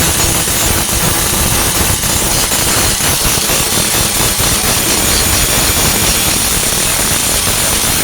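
A 4-1/2 in. angle grinder with a Type 27 grinding disc grinding down welds on a steel tailgate, running steadily under load.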